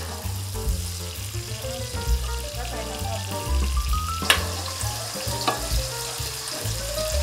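Sliced onions sizzling as they fry in oil in an aluminium pot, stirred with a wooden spoon, with two sharp knocks about four and five and a half seconds in. Background music with a bass line and a rising melody plays underneath.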